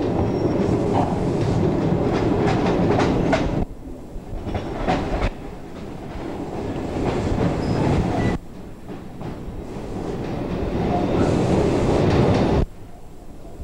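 Suburban electric train heard from inside a carriage while running: a steady rumble of wheels on track, with clicks over rail joints in the first few seconds. The sound drops suddenly three times, then builds back up.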